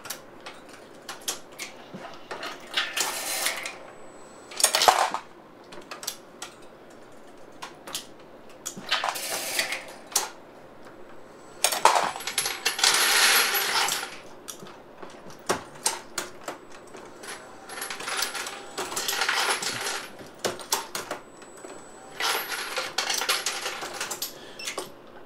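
Dillon progressive reloading press being cycled by hand: sharp metallic clicks and clinks of brass and loaded rounds, with a longer rattling stretch about six times as the handle is worked.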